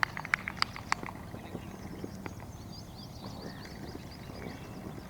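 Four sharp knocks in quick succession in the first second, then faint high chirps over low background noise.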